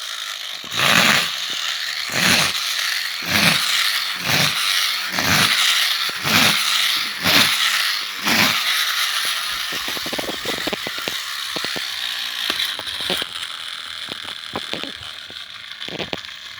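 Friction-powered toy car's flywheel motor being wound by pushing the car, about nine rasping strokes roughly a second apart. It then whirs on its own and slowly winds down.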